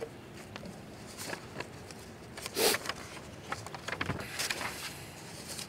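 Faint steady outdoor background noise with a few soft rustles and clicks from handling at a lectern fitted with microphones. The loudest is a short burst about halfway through, followed by a cluster of small rustles.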